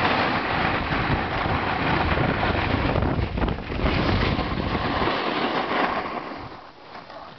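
A snowboard sliding and scraping over packed snow, with wind buffeting the microphone as a low rumble. Both fade over the last couple of seconds.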